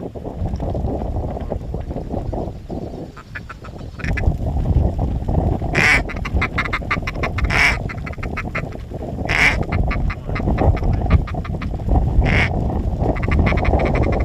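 Ducks quacking in rapid runs of short calls, with a few louder, harsher calls standing out, over a steady low noise.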